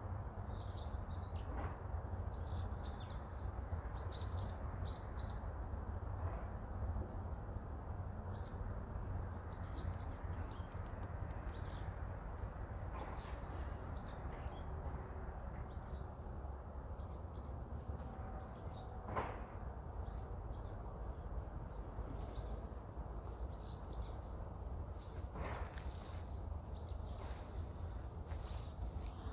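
Crickets chirping in a steady rhythm, about two high chirps a second, with scattered fainter high chirps over a low rumble.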